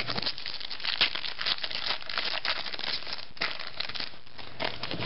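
Foil trading-card pack wrapper being torn open and crinkled by hand: a dense, continuous run of small crackles.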